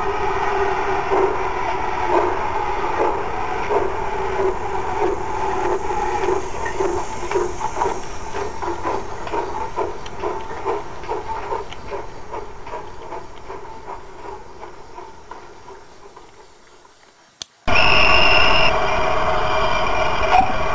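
OO-gauge model steam locomotive and coaches running on the layout's track, with a rhythmic beat and a steady running sound that fade away as the train draws off. Near the end it cuts suddenly to a louder running sound as a second model locomotive sets off.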